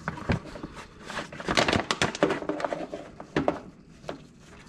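Plastic clicks, knocks and crinkling from a hand-pump fill hose and plastic gear-oil bottle being handled as the hose is pulled out of a differential's fill hole. The noise comes in irregular bunches, densest in the middle.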